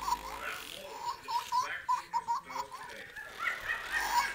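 Young baby laughing in runs of short, quick giggles, a few a second, with a brief pause past the middle.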